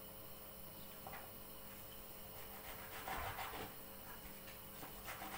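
Chef's knife cutting through a tomato and knocking on a plastic cutting board: faint, irregular soft chops, with a few quick strokes together about three seconds in.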